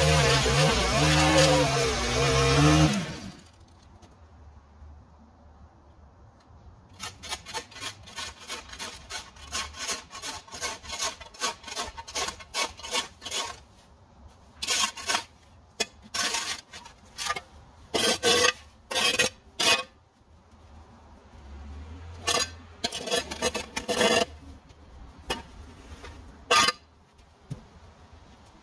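A small gas engine runs briefly and shuts off about three seconds in. After a short lull, a long series of irregular scraping strokes follows, coming in quick runs with short pauses between.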